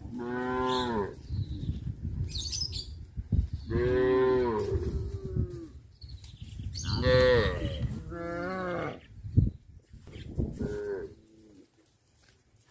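Cattle mooing: five separate calls of about a second each, several dropping in pitch as they end, with a couple of dull low knocks between them.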